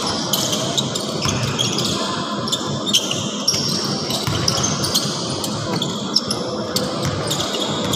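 Basketball in play on an indoor court: the ball bouncing and knocking repeatedly, with short high sneaker squeaks and background voices echoing in a large gym.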